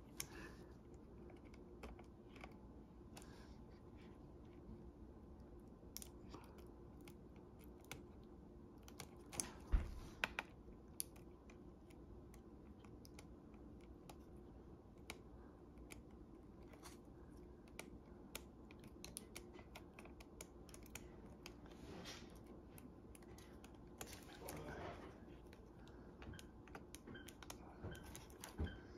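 Scattered faint plastic clicks and taps from fingers and a small pry tool working at the ribbon-cable connectors inside an opened Lenovo ThinkPad X240 laptop, with one louder knock about ten seconds in.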